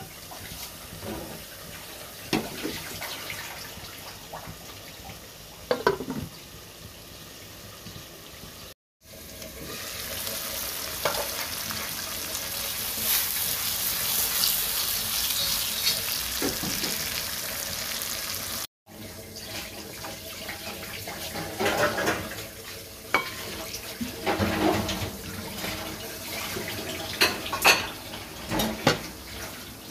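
Pabda fish cooking in a pan: frying sizzle, with a louder steady hiss through the middle stretch, then many short knocks and clinks against the pan near the end.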